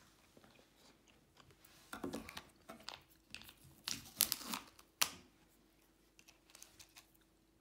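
Häagen-Dazs ice cream mini cup being opened by hand: the lid and its inner film seal are peeled off with a run of crinkling and tearing rustles, ending in one sharp click about five seconds in.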